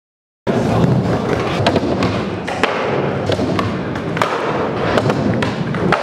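Skateboard rolling, its wheels rumbling steadily on the park's floor and ramps, with sharp clacks at irregular moments from the tail popping and the board landing. It starts abruptly about half a second in.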